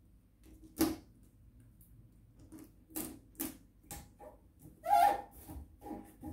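Plastic carrier bag and PVC insulation tape crackling and rustling in short sharp bursts as the tape is pulled and pressed down over the bag onto a toilet rim. The loudest crinkle comes about five seconds in.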